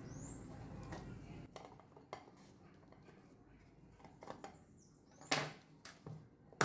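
A thin metal pry tool scraping and clicking against the edge of a round clock case as the case and bezel ring are prised apart. There are scattered small clicks, with a louder clack about five seconds in and another near the end.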